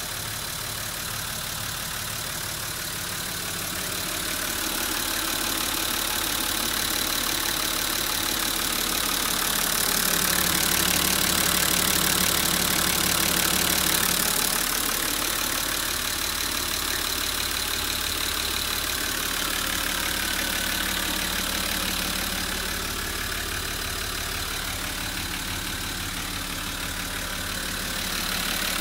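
Nissan Civilian bus's TD42 4.2-litre straight-six diesel engine idling steadily, heard through the open engine cover between the front seats; it is louder for about four seconds in the middle.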